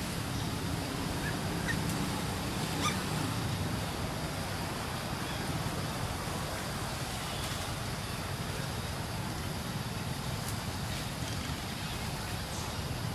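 Steady outdoor background noise with a low hum, and a few faint short chirps in the first few seconds.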